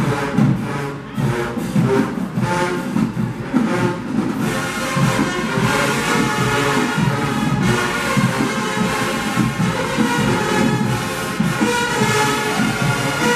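HBCU marching band playing: brass and drumline together, with sharp drum hits standing out for the first few seconds. From about four seconds in, the full brass section fills in with loud sustained chords.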